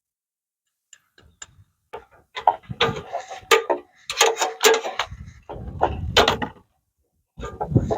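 Irregular knocks and clatter of lumber being handled and set in place, starting about a second in, with a low rumble under the later knocks.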